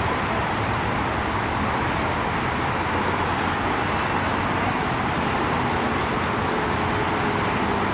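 Steady road traffic noise from cars passing through a city intersection.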